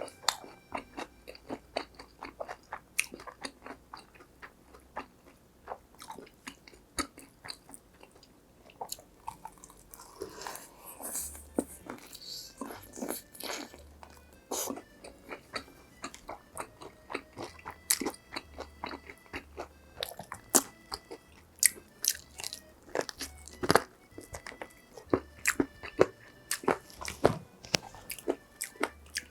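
Close-up crunching and chewing of crispy fried food, with many irregular crackly bites.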